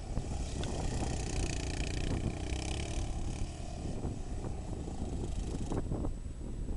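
Yamaha Raptor 700 quad's single-cylinder engine revving up and down as it spins donuts on sand, heard faintly from a distance under heavy wind noise on the microphone.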